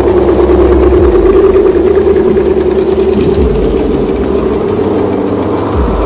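Scale RC crawler trucks driving past on asphalt, their electric motors and gearboxes giving a steady whine over a low rumble.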